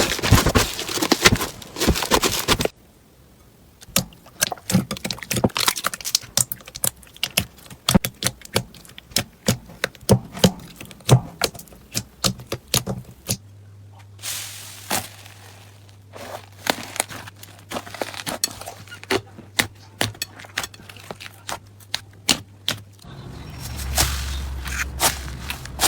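Slime being squeezed and poked by hand, giving a run of sharp crackling clicks and pops, several a second. The sound changes abruptly a few times as one slime clip gives way to the next.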